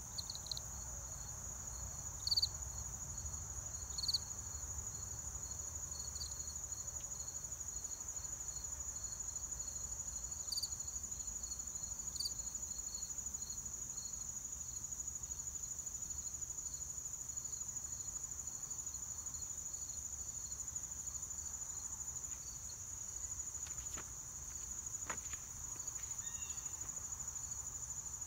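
Insects trilling in a steady, high-pitched chorus, with a few short chirps in the first dozen seconds and two faint clicks near the end.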